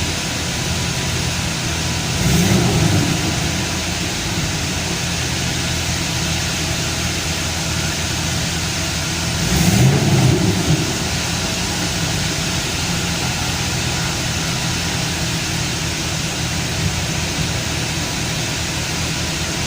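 Chevrolet Camaro engine idling and blipped twice, about two seconds in and again about ten seconds in, each rev briefly rising and dropping back to idle. It runs without misfiring under the revs.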